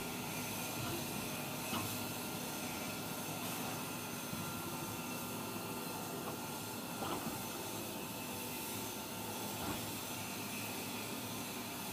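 Hydraulic flattening press running with a steady hiss and hum while its ram bears down on a thick chromium carbide overlay plate; a few faint clicks.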